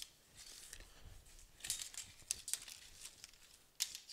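Steel tape measure being pulled out and stretched across a steel frame: faint rustling and scraping with a few sharp clicks.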